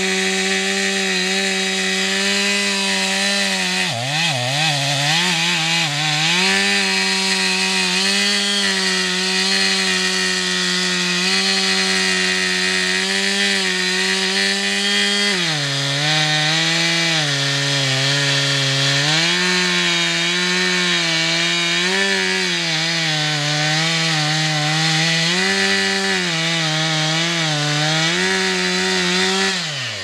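Chainsaw running at high throttle and cutting Hovenia dulcis wood. Its engine pitch holds steady at first, then from about halfway dips and recovers about once a second as the chain loads in the cut. Near the end the engine winds down sharply.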